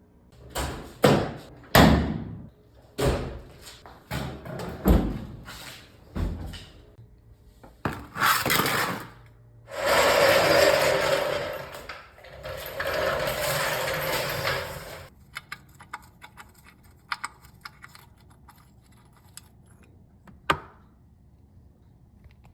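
Knocks and clatters of tools and parts during an oil change on a car, then two stretches of steady rushing noise of a few seconds each, followed by light ticks and one sharp knock near the end.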